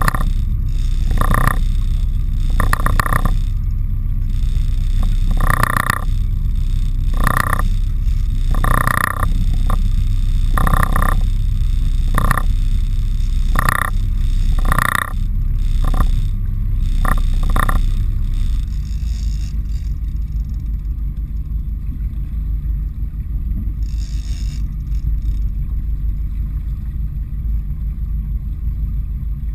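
A big-game fishing reel cranked in short rasping bursts, one every second or two, as a hooked bluefin tuna is pumped on stand-up gear; the bursts stop about 18 seconds in. Under them runs a steady low rumble.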